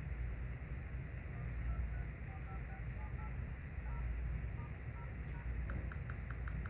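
Samsung J6 Plus phone's speaker playing short dial-pad keypad tones, one for each digit tapped on the new touchscreen, about a dozen in quick succession. Near the end come rapid keypress clicks, about five a second, as the touch response is tested.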